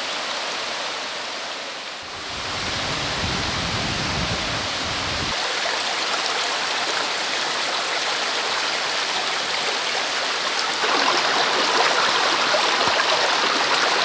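Mountain stream running over boulders, a steady rush of water. There is a deeper rumble for a few seconds near the start, and it turns louder and splashier from about eleven seconds in.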